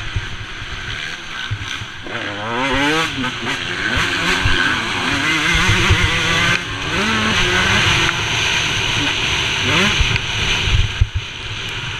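Motocross dirt bike engine revving up and down as the rider accelerates and shifts gear, with rising pitch sweeps around two to three seconds in and again near ten seconds. Heard from a helmet-mounted camera, under a steady rush of wind noise with occasional knocks from the rough track.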